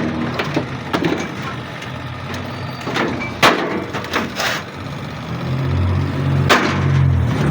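Knocks and clicks of tools and parts being handled while a microwave oven is taken apart for repair, with a low drone in the second half.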